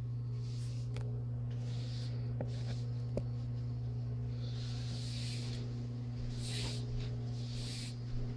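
Paint being spread on a wall in a series of soft swishing strokes, a few of them with faint clicks, over a steady low electrical hum.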